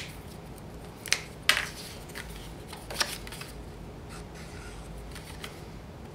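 A small piece of cardstock handled while its edges are inked with a marker pen: four short taps and paper rustles, the loudest right at the start, over a faint steady hum.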